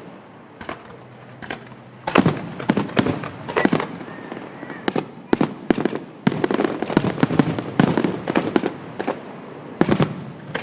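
Fireworks going off in a rapid, irregular string of sharp bangs and pops. A few isolated pops come first, then from about two seconds in a dense run of cracks lasts for several seconds.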